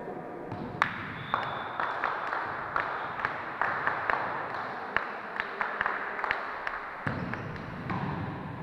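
Volleyball play: irregular sharp smacks and thuds of the ball being hit and striking the floor, a few a second, over a steady hall hubbub.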